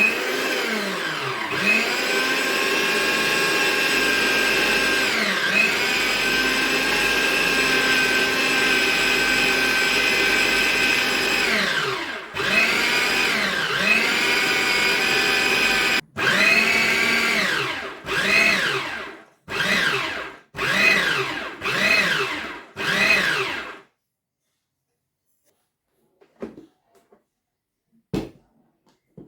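Prestige Atlas Deluxe 750 W mixer grinder's motor running with its atta-maker blade, kneading flour and water into dough in the jar. It whines steadily for about twelve seconds, then runs again after a short break, and near the end comes in about six short pulses, each spinning up and winding down, before stopping.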